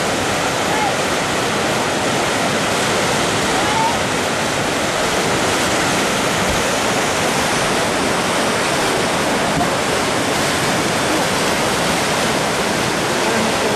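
Whitewater rapids rushing steadily: a constant, even noise of turbulent, foaming river water.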